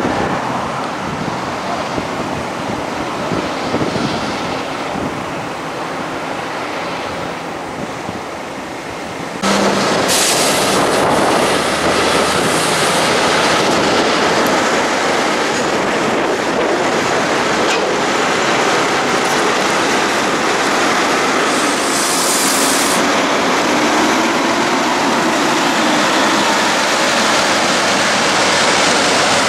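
Heavy diesel trucks on the move: first a road train passing on the highway, then, louder and steady after a cut about nine seconds in, heavy-haulage prime movers pulling an oversize load away under power, the Mack Titan block truck working hard. Two brief high hisses sound over the engine noise.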